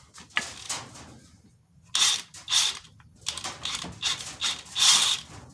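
A wrench on a socket backing out a flywheel bolt on a Jeep 4.0 straight-six, in about five short rattling bursts with brief pauses, the last one the loudest.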